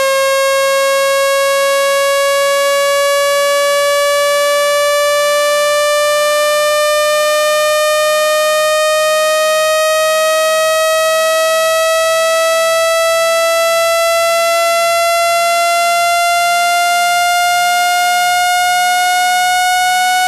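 Synthesized speaker-cleaning tone: a loud, buzzy electronic tone that rises slowly and steadily in pitch, played through a phone speaker to shake out water and dust.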